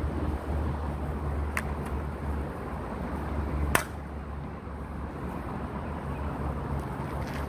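Wind rumbling on the microphone, with a faint click about a second and a half in and a sharp, louder click a little before four seconds in as an air gun is handled, cocked or loaded.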